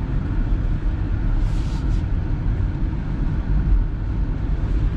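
All-wheel-drive car driving slowly on a snow-covered road, heard from inside the cabin: a steady low rumble of engine and tyres. A brief hiss sounds about one and a half seconds in.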